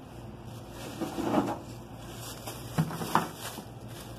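Handling noise as toys and a bag of them are moved about: a few soft knocks and rustles, with two sharper clicks about three seconds in.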